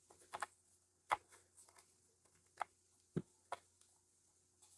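Scattered faint clicks and taps of a screwdriver against a stuck screw and the plastic bottom cover of an ASUS ROG Strix G512LW laptop, about six in all, irregularly spaced.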